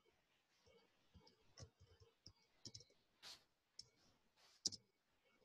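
Faint, scattered clicks of a computer mouse and keyboard as a line of text is copied and pasted, irregularly spaced, with a slightly louder pair near the end.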